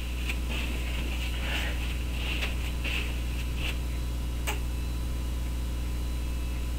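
Steady low electrical hum on the recording, with faint scuffs and rustles of a person moving about and a single sharp click about four and a half seconds in.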